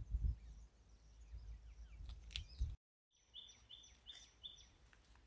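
Faint open-air ambience with low rumbling on the microphone. About three seconds in, a bird gives four short, evenly spaced high chirps.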